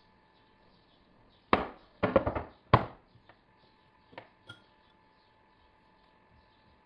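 Kitchen knife knocking and scraping on a cutting board while a chilled chocolate-glazed cake is cut: a cluster of sharp knocks about one and a half to three seconds in, then two lighter taps.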